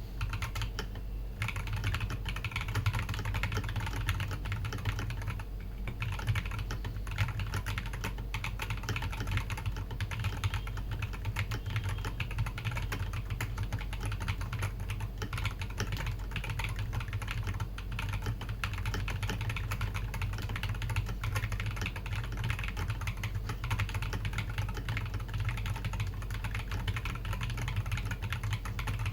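Continuous typing on a KBD Bella mechanical keyboard with Glorious Panda tactile switches on a brass plate: a fast, steady run of keystrokes, with brief pauses about a second in and near six seconds in.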